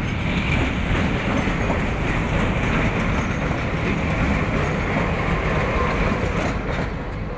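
Diesel locomotive passing close alongside at slow arrival speed, its engine running with a steady rumble, then the first passenger coaches rolling past on the rails.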